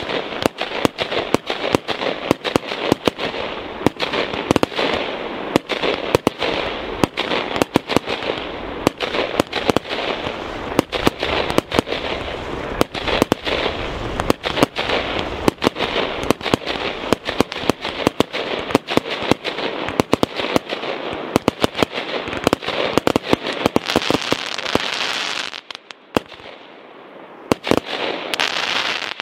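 Fireworks display: a dense, unbroken run of bangs over constant crackling. It drops away abruptly about 25 seconds in, then a last short flurry of bangs comes near the end.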